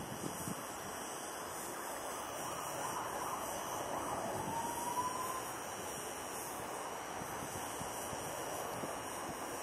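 Wind on the microphone over the distant, steady hum of an Airbus A319's jet engines on approach, swelling slightly in the middle, with a faint rising whine about four seconds in.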